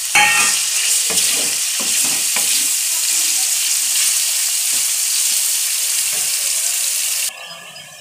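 Cubed raw chicken breast sizzling in hot oil in a metal kadai, stirred with a wooden spatula that knocks and scrapes against the pan, most often in the first couple of seconds. The sizzle stops abruptly near the end.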